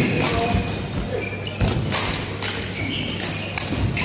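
Badminton rally: a few sharp racket strikes on the shuttlecock, with players' shoes squeaking and thudding on the court floor between shots.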